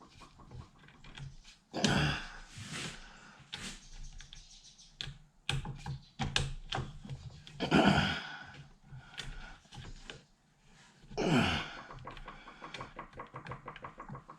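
Hand work on a chop saw's motor parts: a run of light clicks and taps, with three louder scraping strokes about two seconds in, near eight seconds and about eleven seconds in.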